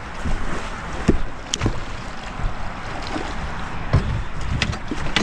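Gear knocking and clattering in a fishing boat, a few sharp knocks over steady wind and water noise, as a landing net is handled during a fish fight.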